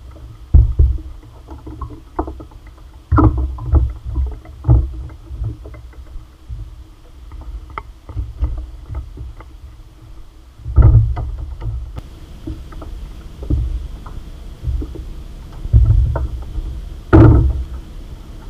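Small boat under way over a choppy sea: the hull knocks irregularly against the waves, with several sharp slaps and wind buffeting the microphone over a faint steady hum.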